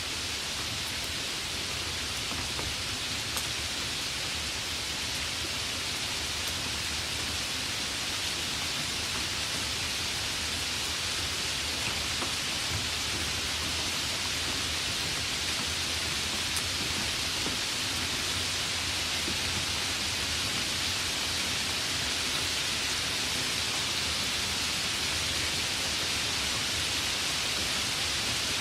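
Light rain falling steadily: an even hiss, with a few faint separate drop ticks.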